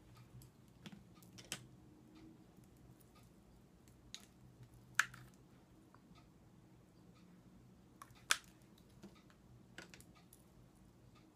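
Scattered light clicks and taps of makeup cases and tools being handled, picked up and set down, with two sharper clicks about five and eight seconds in.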